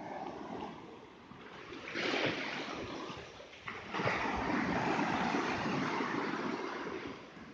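Small ocean waves breaking and foamy surf washing up over wet sand, a rush that swells about two seconds in and again, louder and longer, from about four seconds in.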